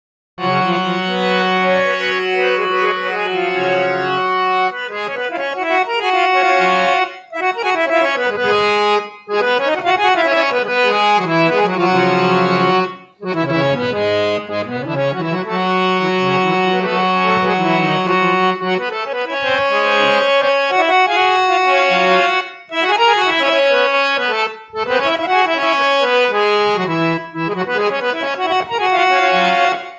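Harmonium playing a bhajan tune (dhun): reed notes held over a low drone, with quick runs up and down and short breaks between phrases.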